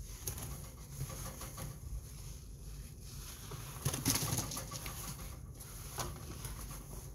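Guinea pig purring, a low rumble that runs steadily, with rustling of hay and cloth about four seconds in.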